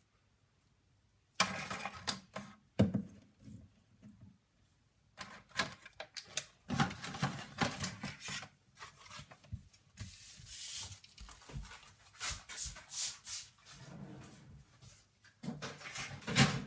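Plastic action figures being handled and stood up: irregular clicks, taps and rubbing of hard plastic, starting after a near-silent second or so.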